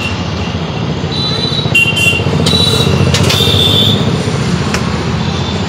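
Street traffic beside the stall: a motorcycle engine running close by, with several short high-pitched beeps between about one and four seconds in and a few sharp clicks.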